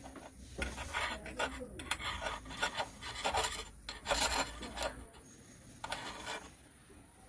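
A spatula scraping against the bottom of a small metal pan as it works under a thin pancake of batter to loosen it: a quick run of short, irregular scrapes for about five seconds, then one more stroke near the end.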